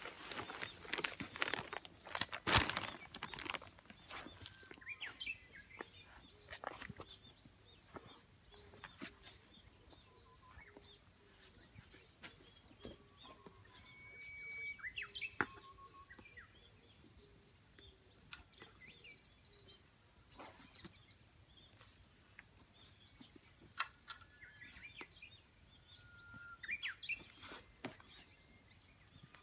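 For the first few seconds, a plastic fertilizer sack rustles and crinkles as its contents are poured into a bucket, with one sharp knock. After that there is a steady high insect hum with scattered short bird chirps and whistles. Near the end come a few footsteps of rubber boots on soft soil.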